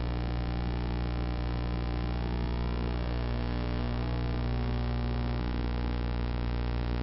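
A steady buzzing hum with many overtones, unchanging in pitch and level throughout.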